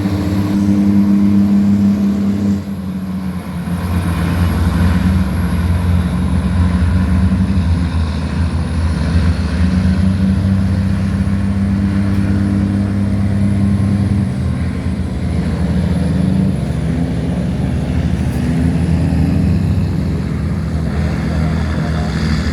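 Tugboat's diesel engine running steadily as a low drone while towing laden cargo barges against the current, with a short drop in level about two and a half seconds in.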